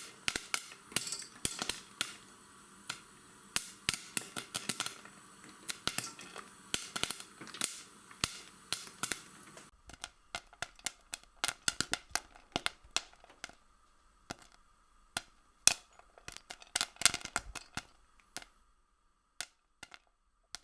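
A long run of irregular sharp clicks and taps, some close together and some spaced out, over a quiet background. In the second half a faint steady high tone can be heard beneath them.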